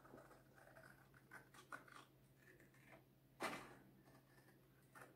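Faint snips of scissors cutting through glittered paper around a circle, with paper rustling between cuts; one louder, sharper cut about three and a half seconds in.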